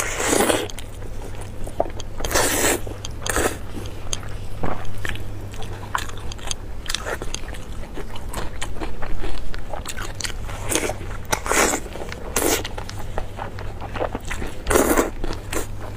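Close-miked eating: biting into glazed roast meat on the bone, tearing it apart by hand and chewing, with wet, crackly tearing bursts every second or two.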